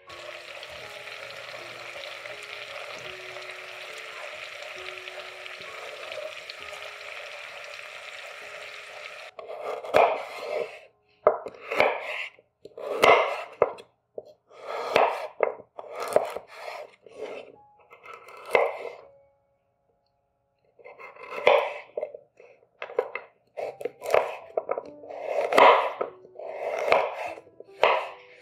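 Soft background music with a steady hiss for about the first nine seconds, which cuts off abruptly. It is followed by a series of short kitchen strokes, about one a second, typical of food being cut on a board.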